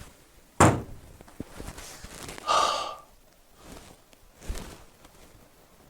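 A single sharp thud about half a second in, then a short breathy vocal sound a couple of seconds later, and a faint low knock near the end.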